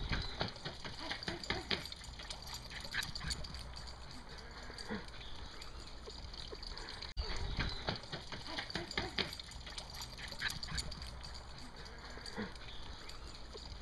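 Silky terrier tearing about on a lawn: irregular scuffs and light clicks over a steady outdoor hiss, with the sound cutting out for an instant about seven seconds in.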